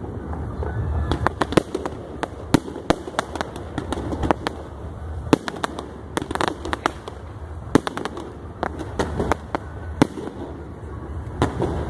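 A fireworks display going off: a rapid, irregular string of sharp bangs and pops, about two or three a second, as comets and bursts fire.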